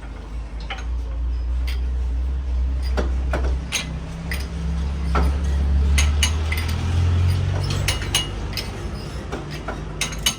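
Metal clinking and tapping at irregular intervals over a steady low machine hum.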